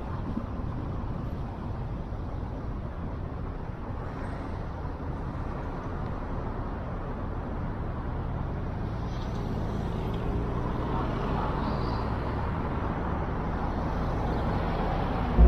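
Steady road and tyre noise with engine rumble from a car driving along a city street, growing gradually louder in the second half.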